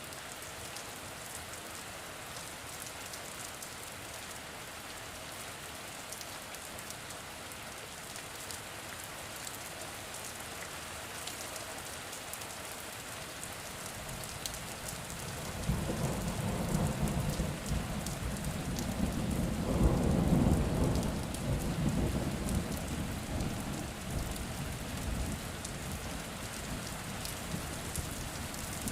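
Steady rain falling, an even hiss with the patter of individual drops. About halfway through, a low roll of thunder builds, is loudest for a few seconds, then rumbles away under the rain.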